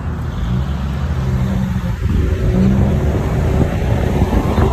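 Jeep's engine and road noise heard from the moving vehicle, with heavy low rumble and wind noise; the engine note and loudness rise about two seconds in as it picks up speed.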